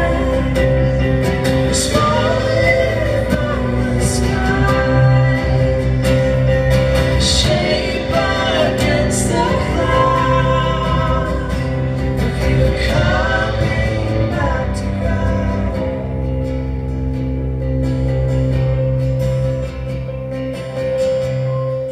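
A live song: a woman singing over acoustic guitar, cello and keyboard. The singing stops about two-thirds of the way through and the instruments play on.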